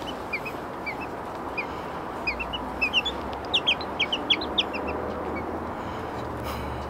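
Baby chick peeping: short high chirps, a few scattered at first, then a quicker run of louder peeps in the middle.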